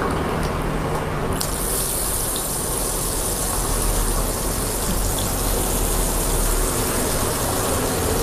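Battered tempe deep-frying in a wok of hot oil: a steady sizzling hiss that swells suddenly about a second and a half in as fresh pieces go into the oil.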